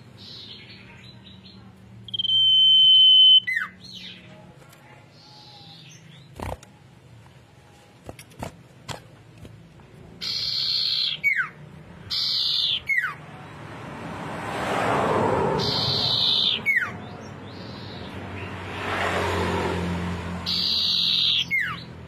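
Caged cipoh (iora) singing in shrill, high whistles. It gives one long steady whistle about two seconds in, then from about ten seconds on a run of loud, roughly second-long whistled notes that each end in a quick falling glide.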